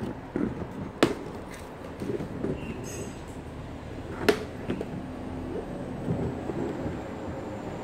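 Plastic toy parts being handled and shifted on a table, rattling and scraping, with two sharp knocks, one about a second in and one a little past four seconds.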